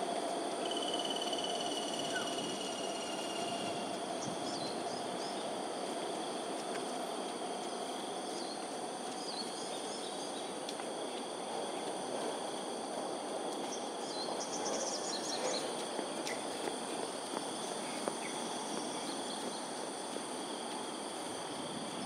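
Dawn ambience: a steady, high-pitched insect chorus holding several constant tones, over a broad, even background hum. A few short bird chirps break in now and then, around five, nine and fifteen seconds in.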